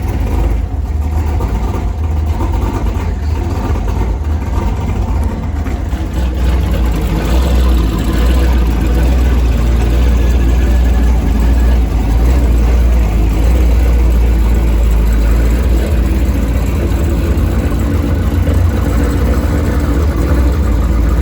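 Cammed LS V8 of a modified Pontiac G8 running with a loud, steady low rumble, getting a little louder about a third of the way in.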